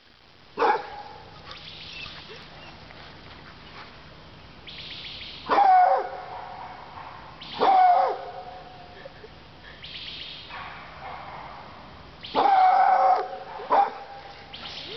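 American black and tan coonhound barking loudly about five times, each a deep, downward-bending call, the longest about three quarters of the way through. She is reacting to another dog she hears across the way.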